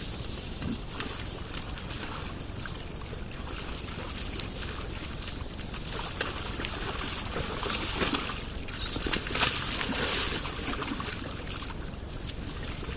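Wild boars wallowing and rolling in a muddy puddle: wet sloshing and rustling in the leaf litter, with scattered short clicks.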